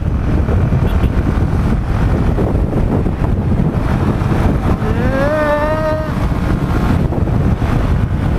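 Motorcycle running at highway speed, with heavy wind noise on the microphone over the engine. About five seconds in, a brief tone rises and then holds steady for about a second.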